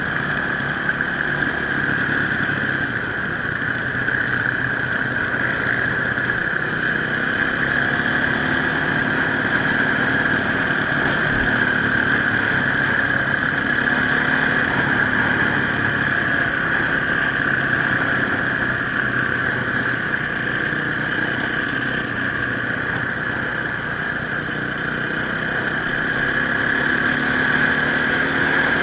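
Enduro motorcycle engine running steadily while being ridden off-road, its pitch rising and dipping slightly without any hard revving.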